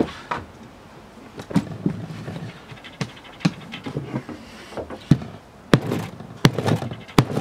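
Knives chopping down onto a Kevlar-lined cotton hoodie lying on a table: a series of sharp, irregular thuds. The blades do not cut through the Kevlar lining.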